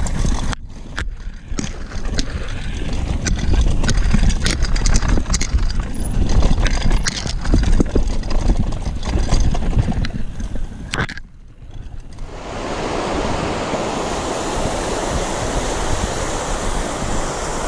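Gusting, rumbling wind noise on the microphone with many sharp clicks and rattles. It drops away briefly about eleven seconds in, and from about twelve seconds an even, steady rushing noise takes over.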